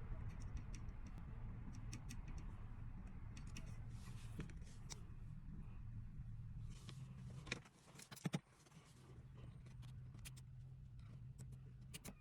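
Small clicks and short scrapes of a tool picking at a phone's charging port, over a low steady hum, with the sharpest clicks about seven and eight seconds in.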